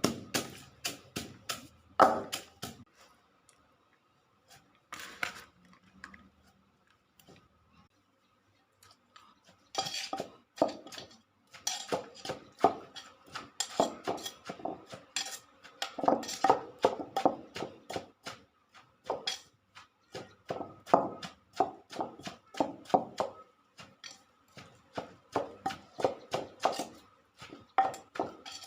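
Papaya salad being pounded with a pestle in a mortar: sharp knocks several a second, with clinking. The pounding stops for several seconds a few seconds in, then resumes.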